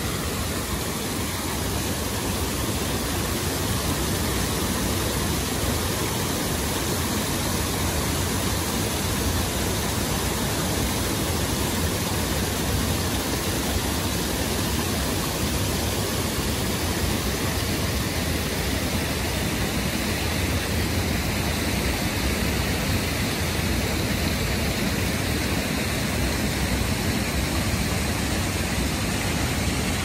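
Tioronda Falls on Fishkill Creek: a steady rush of water pouring over the falls and churning through the whitewater and rapids below.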